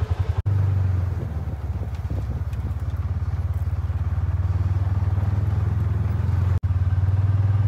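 Side-by-side UTV engine running steadily under way, a low, even hum.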